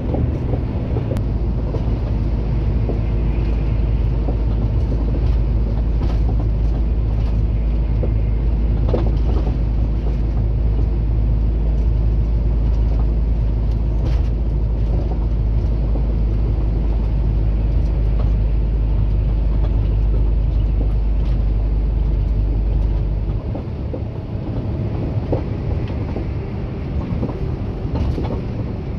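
Truck engine and road noise heard from inside the cab while driving on a highway: a steady, loud drone with a deep rumble that falls away about three-quarters of the way through.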